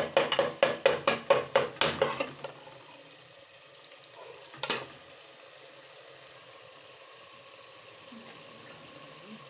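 A metal ladle stirring and scraping frying masala in a metal pot, in a quick rhythmic run of about four strokes a second that stops a little over two seconds in. After that the masala sizzles quietly, with one sharp knock of the ladle against the pot about halfway through.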